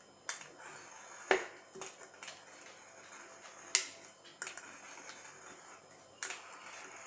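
Aluminium soda can being turned against a blade held at its base, scoring a cut around the bottom: light scraping of the metal with about five sharp clicks, the loudest about a second in and again near the middle.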